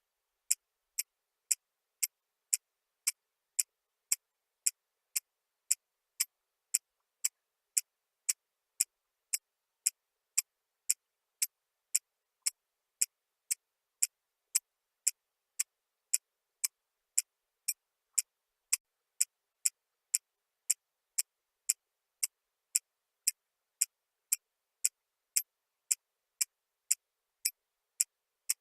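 Steady, sharp ticking, about two ticks a second, evenly spaced, with nothing heard between the ticks.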